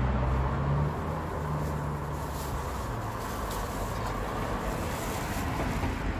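Street traffic noise: a steady rush of passing cars, with a car engine's low hum most prominent in the first couple of seconds. The sound cuts off abruptly near the end.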